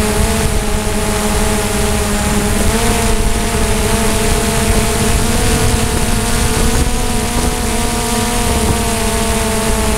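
DJI Mavic drone's propellers humming steadily in flight, heard close up from the camera carried on the drone, a pitched whine that wavers slightly, over a rough rumble and hiss.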